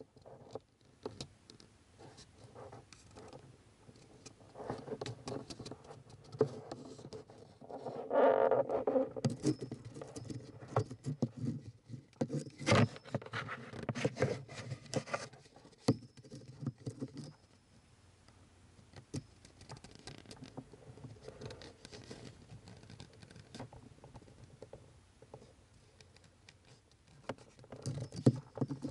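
Irregular scraping, rubbing and light tapping as a small camera is worked around inside a plastic HVAC blower case, brushing against the housing and the evaporator core fins. There is a louder scrape about eight seconds in and one sharp click near the middle.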